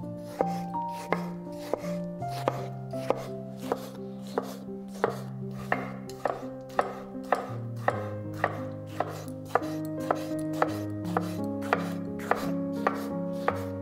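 A knife chopping food on a cutting board in a steady, even run of strokes, over soft background music with held notes.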